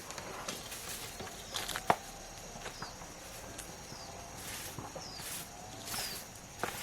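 Outdoor rural ambience: a bird calls over and over with short high notes that slide downward, about one every half second to a second, over a steady high hiss. A single sharp knock about two seconds in is the loudest sound, with a few scattered scuffs like footsteps.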